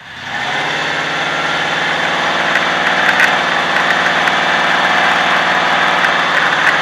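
Truck engine and exhaust heard from under the vehicle. The sound gets much louder about half a second in as the truck pulls away, then runs steady.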